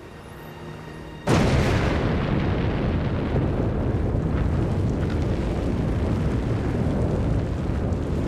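Sakurajima volcano erupting: a sudden explosive blast about a second in, followed by a steady low rumble of the eruption.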